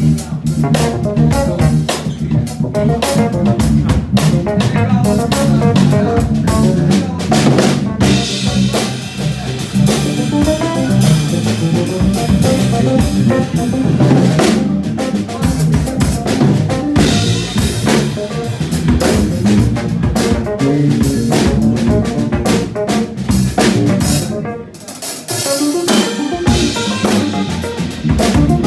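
Live band music led by an acoustic drum kit: bass drum, snare and rimshots keeping a busy groove, with an electric keyboard playing chords over low bass notes. The band briefly drops back near the end.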